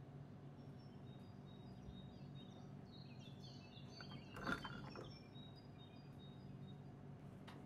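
Chocolate pieces tipped from a ceramic bowl into a pan of warm milk: one soft knock and splash about halfway through, with a few faint high squeaks around it. A faint steady low hum runs underneath.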